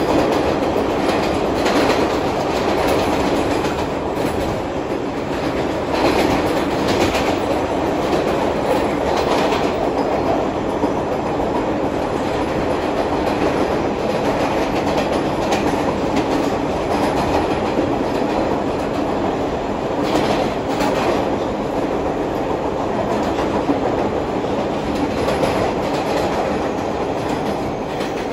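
NYC Subway R160B Siemens car running at speed through a tunnel, heard inside the car by its end door: a steady rumble of wheels on rail with occasional clacks.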